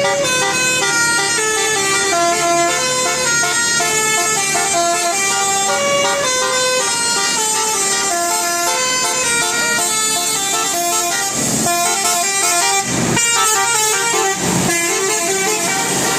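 Bus telolet horn, a multi-trumpet horn, playing a loud melody whose notes step up and down several times a second, with a few short breaks past the middle.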